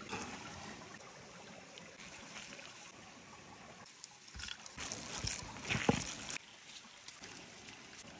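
Creek water trickling faintly, with a few short scrapes and soft knocks of a cleaver and wooden bowls about halfway through as chopped herbs are scraped onto minced meat.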